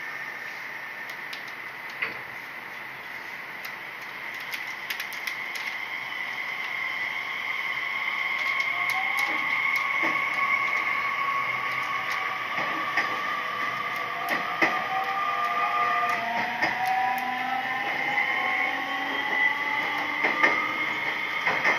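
Nishitetsu 3000-series electric train pulling away from a station, heard from inside the passenger car: the inverter and traction motors whine in several tones that climb in pitch as it gathers speed. Running noise grows louder throughout, with scattered clicks of the wheels over rail joints.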